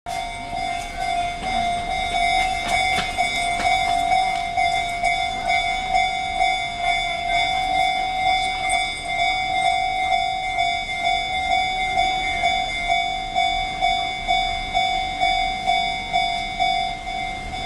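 Japanese railway level-crossing warning bell ringing: an electronic 'kan-kan' tone repeating evenly about twice a second, warning that a train is approaching.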